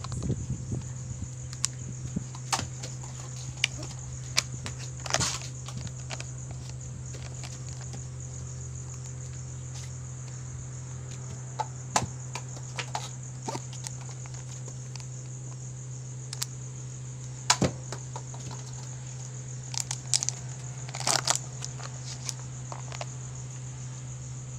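Insects chirring steadily at a high pitch over a steady low hum, with scattered light clicks and taps and a small cluster of them about three-quarters of the way through.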